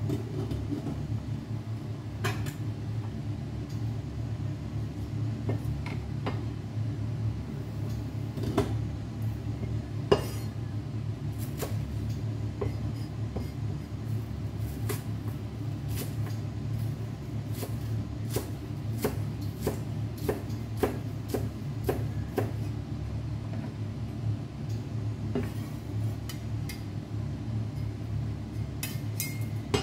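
A kitchen knife cuts on a cutting board, giving sharp knocks roughly once or twice a second through the middle stretch, over a steady low hum.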